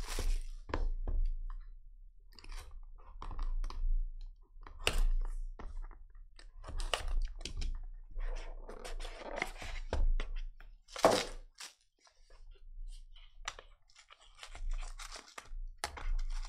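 Plastic shrink wrap crinkling and tearing as a sealed trading-card box is unwrapped and opened, with cardboard handling noises. One loud sharp snap about eleven seconds in.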